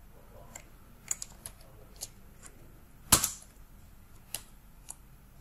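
Sparse clicks from computer keys being pressed one at a time, about seven in all, with one much louder clack about three seconds in.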